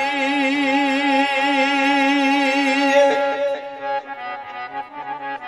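Folk music accompanying a Punjabi qissa recital: a long held note with vibrato over a steady reed drone, likely a harmonium. The held note ends about three seconds in, and the steady reed tones carry on more quietly.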